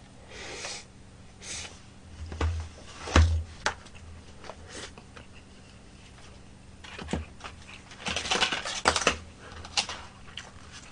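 Eating sounds: chewing and mouth smacks, with scattered clicks and taps of chopsticks against a plastic takeout container. The clatter grows denser about eight seconds in.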